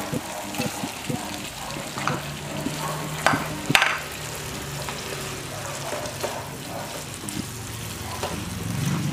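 Chicken and vegetables sizzling in a frying pan as they are stir-fried, with the utensil scraping and knocking against the pan a few times. The loudest knocks come a little before the middle.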